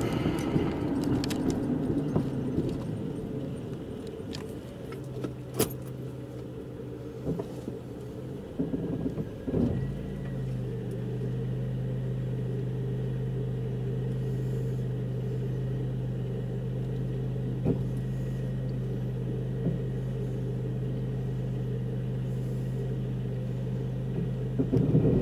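Car heard from inside the cabin as it rolls to a stop, the road noise fading. From about ten seconds in the engine idles with a steady low hum, with a few light clicks and rattles.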